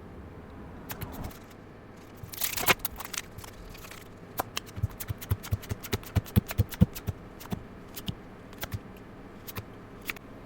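Hands working at a smashed metal card tin and its contents: a brief scrape, then a long run of irregular clicks and taps, several a second.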